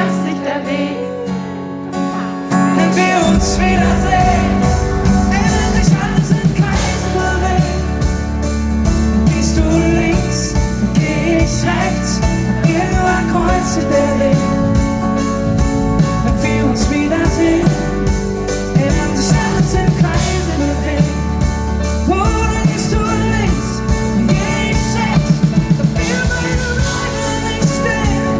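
Live band performance of a pop-rock song: guitar with bass and drums, the full band coming in about two and a half seconds in, with singing at times.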